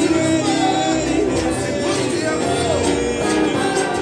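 Loud live music: a singer accompanied by an acoustic guitar, with the voice gliding through a melody over steady strumming.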